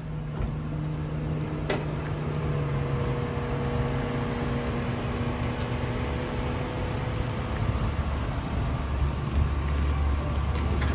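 Mercedes sedan's engine running at low speed as it maneuvers while towing a jet ski trailer, a steady hum that deepens and grows louder in the last few seconds. One sharp click about two seconds in.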